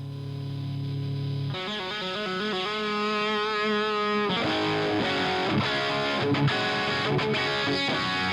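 Electric guitar played through an Omega Series Micro amplifier, recorded direct with a Greenback guitar-cabinet impulse and reverb added. A held chord rings, a new chord comes in about a second and a half in, and from about four seconds the playing turns busier, with picked notes and strums.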